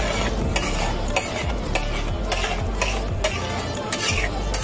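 Metal spatula scraping and stirring chopped vegetables across a large flat tawa griddle, with frying sizzle, about two scrapes a second over a steady low hum.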